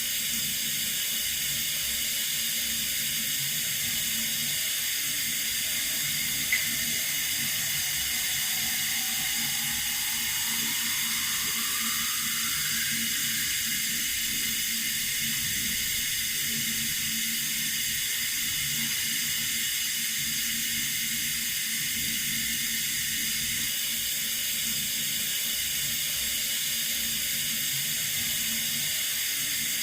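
Water running steadily from a tap, an even hiss, with one brief click about six and a half seconds in.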